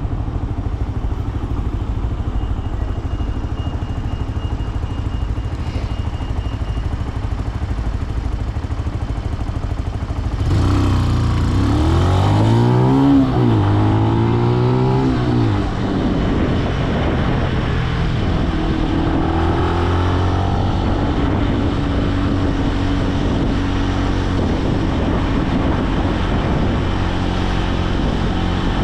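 Benelli BN125 single-cylinder motorcycle engine running at low revs, then about ten seconds in pulling away, its note rising, dropping at a gear change and rising again, before settling into a steady cruise.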